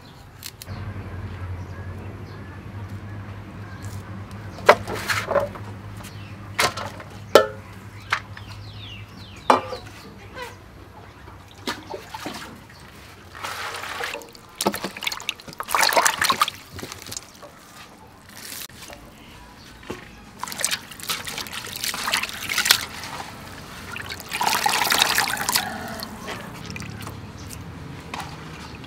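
A few sharp knife clicks, then water poured from a plastic scoop into a steel basin. The water splashes and sloshes in several bursts.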